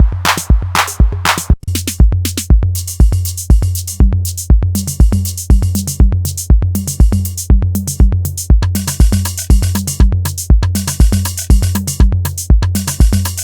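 Roland TR-8 drum machine playing a steady four-on-the-floor pattern: a booming kick about twice a second with ticking hi-hats. The pattern changes about a second and a half in, when the broad clap-like hits drop out, and a low pitched part joins a few seconds later.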